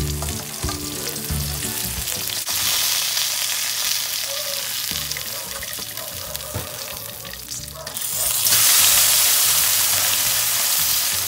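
Fish frying skin-down in hot oil, a steady sizzle that gets louder about two and a half seconds in and louder still about eight seconds in.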